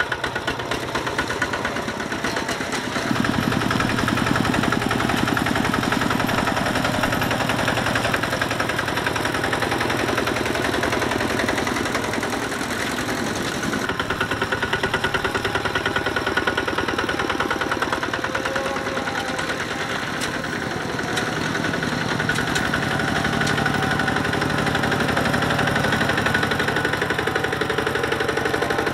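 Single-cylinder diesel engines of two-wheel walking tractors chugging as they pull trailers through mud, passing close by one after another. The rapid, even engine beat grows louder about three seconds in and again near the end.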